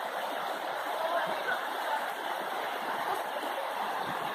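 River water rushing over rocks in a shallow rapid: a steady, even noise.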